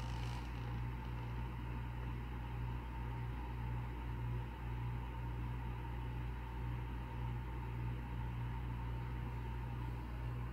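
Timber rattlesnake vibrating its tail, which has only a nub and no rattle yet, so the tail buzzes against the enclosure wall as a low steady drone that swells and fades.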